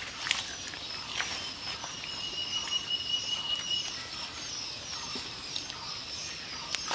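Birds chirping steadily, with a single high, steady whistle lasting about two seconds in the middle. A couple of short splashes of muddy water come in the first second or so as a plastic bowl bails out a shallow pit.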